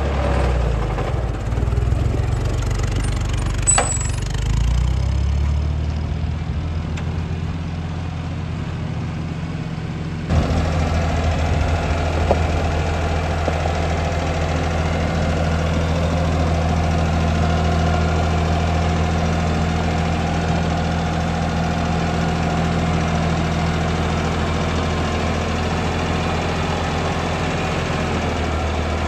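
Ford 230A tractor engine running steadily as the tractor is driven at low speed, a continuous low hum. The sound steps up abruptly about ten seconds in.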